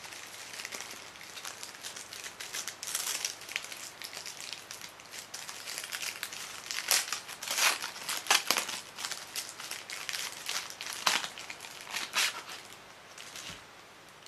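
Red paper wrapping of a firecracker pack crinkling and rustling as it is unwrapped by hand. The sound is an irregular run of crackles, loudest in a cluster about halfway through and again a little later, dying down near the end.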